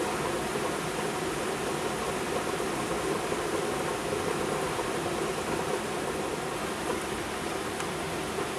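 Torrential thunderstorm rain pouring down steadily, an even hiss at a constant level.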